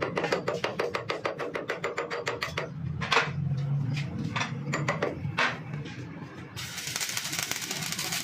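Rapid, even ticking for the first couple of seconds, then a few separate knocks. About six and a half seconds in it cuts sharply to the steady crackling hiss of a stick-welding arc.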